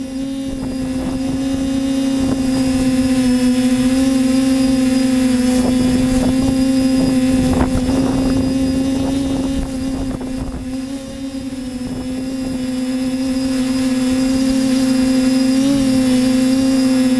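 A machine's motor running with a steady hum that holds one pitch, with a flurry of knocks and clatter about halfway through.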